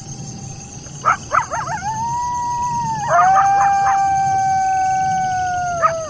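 A group of coyotes howling: several overlapping long, held howls broken by clusters of short yips about a second in and again around three seconds in. A steady high chorus of crickets runs underneath.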